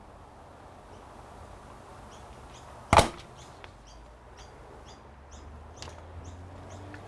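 One sharp, loud knock about three seconds in, as of a hard part or tool striking the workbench, over low room noise with faint, repeated short bird chirps.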